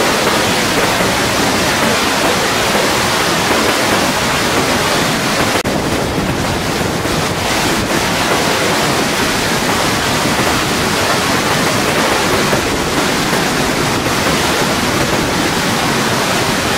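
Flash flood: a surge of muddy water and woody debris rushing down a dry wash, a loud, steady rush.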